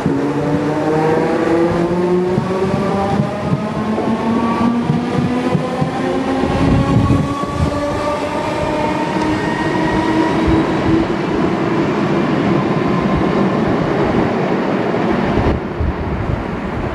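Class 313 electric multiple unit pulling away and accelerating, its traction motors giving a whine that rises steadily in pitch, with the rumble of wheels on the rails growing beneath it about halfway through.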